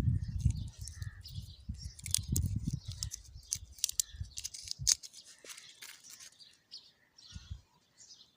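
Crinkling and crackling of plastic candy wrappers as lollipops are handled and unwrapped, with quick clicks and a low handling rumble. The sounds thin out and get fainter after about five seconds.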